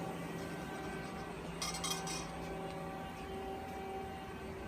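A brief cluster of light clinks about a second and a half in, glass parts of the evaporator being handled, over a steady background hum.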